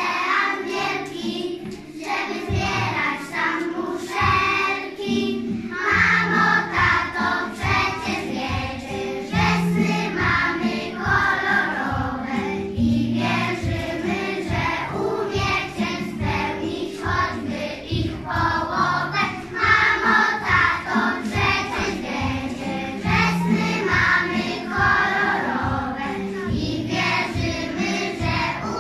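A group of young children singing a song together, with instrumental accompaniment and a steady beat.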